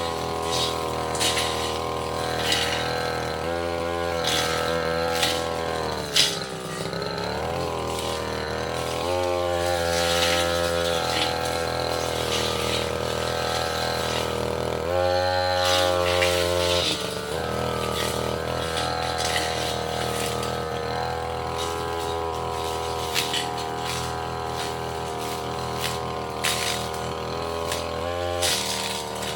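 Tasco 33 Pro two-stroke brush cutter engine running at high speed, its pitch dipping and recovering several times as the blade bites into small saplings and roots, most clearly about six seconds in. Sharp ticks of the blade striking wood and debris run through it.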